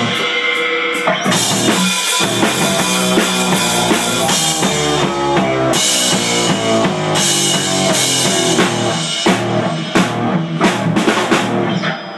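Live rock band playing, the drum kit loudest with bass drum, snare and cymbals, over electric guitar and keyboard; the music stops just at the end.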